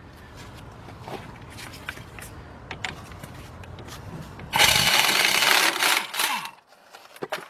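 Scattered light clicks over a low hum, then an impact gun runs for about a second and a half, spinning out a 13 mm hub bolt that was already broken loose by hand, and stops abruptly.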